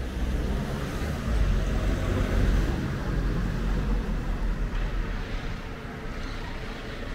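Street noise with a motor vehicle passing close by: a low engine rumble swells about a second in and eases off over the next two seconds, over a steady hiss of traffic.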